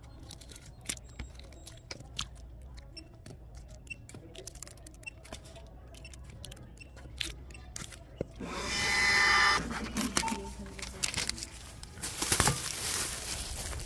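Shopping being handled and scanned at a store self-checkout: scattered light clicks and taps, then about eight seconds in a loud steady electronic tone lasting about a second, followed by rustling and a burst of noise.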